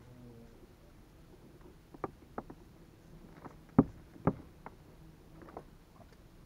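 A few irregular knocks and clicks from gear being handled, the two loudest close together just before the middle.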